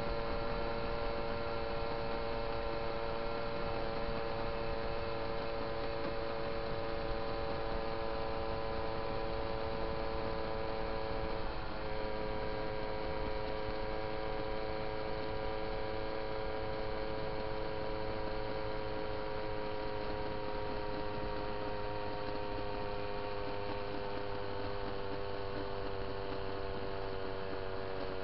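Small two-stroke moped engine running steadily under way, a droning hum over a low rumble. Its pitch steps up slightly near the middle and then slowly sinks.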